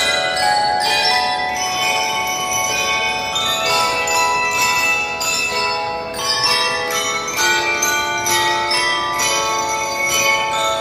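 A drum and lyre band playing: bell lyres ring out a melody of held, metallic notes that change every fraction of a second, with the band's drums underneath.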